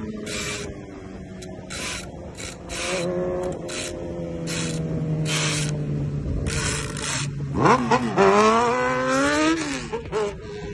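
Motorcycle engines running at road speed, a steady drone broken by short bursts of hiss. About three-quarters of the way in, an engine's pitch drops sharply, then climbs as it revs hard, the loudest part, before easing off.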